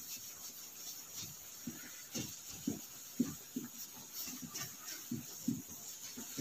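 Marker pen writing on a whiteboard: a run of short, faint strokes and squeaks, about two a second.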